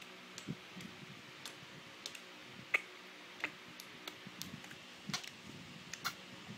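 A baby's soft mouth clicks and tongue smacks, irregular and scattered, about a dozen in all, the sharpest one about three seconds in.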